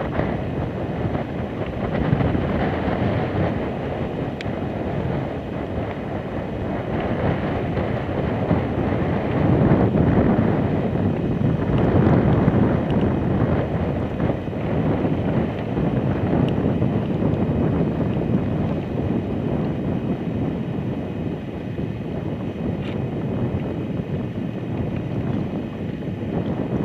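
Wind blowing across the microphone: a continuous rushing noise that swells and eases in gusts.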